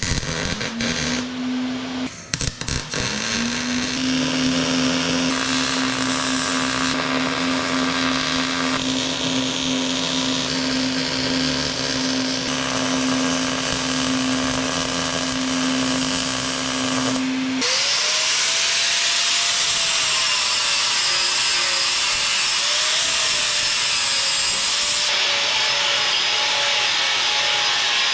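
Steel being MIG welded: a steady electrical hum under the hiss of the arc, stopping briefly and starting again near the beginning. About two-thirds of the way in it gives way to an angle grinder spinning up and grinding steel, its pitch dipping as it bites.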